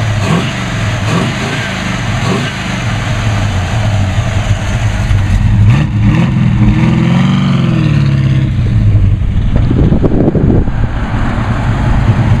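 A 1967 Pontiac Firebird's built 400 cubic-inch V8 with an aftermarket cam, running through its 2.5-inch dual exhaust. It runs steadily, is revved up and back down once about six seconds in, and surges briefly again near ten seconds.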